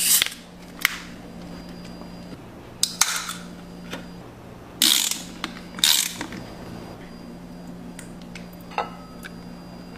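A hammer driving a chisel into an aluminium soda can clamped in a bench vise: a few sharp metallic knocks and short hissing spurts. A single click follows near the end, over a faint steady hum.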